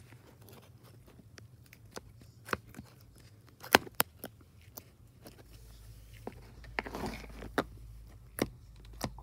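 Fingers poking and squeezing slime in a plastic tub, making irregular small pops and sticky clicks, with two sharper pops about four seconds in.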